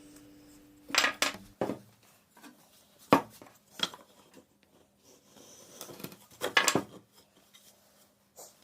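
Sharp clinks and knocks of hard objects being handled and set down, in scattered clusters a few seconds apart, as the tail of background music dies away in the first second.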